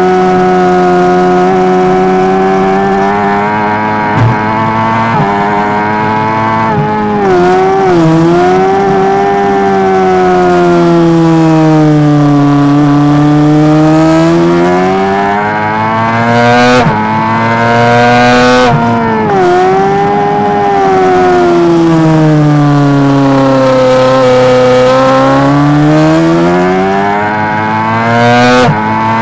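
Honda CBR600RR racing motorcycle's inline-four engine at high revs, heard onboard over wind rush. The pitch sweeps down and climbs again through the corners, with sudden breaks where the rider shifts gear, about five times.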